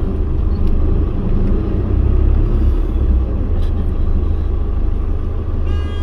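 Steady low engine and road rumble of a kindergarten shuttle vehicle, heard from inside while it drives.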